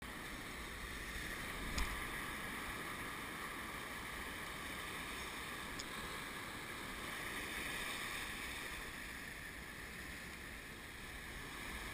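Steady wash of shallow surf with wind noise on the microphone, and one sharp tap a little under two seconds in.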